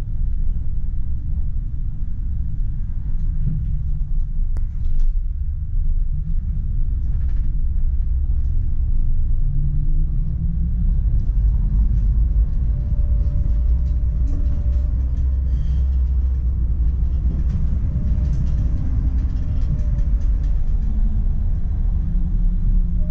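PESA Swing 122NbT low-floor tram under way, heard from the driver's cab: a steady low rumble of wheels on rails and running gear. From about halfway a faint whine wavers in pitch above it.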